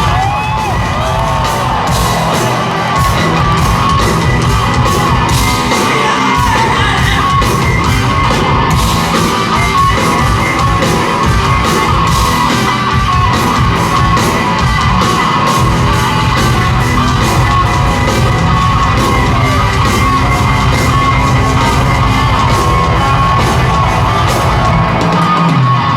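Rock band playing live at full volume through a concert hall's PA, recorded raw, with the crowd yelling and singing along.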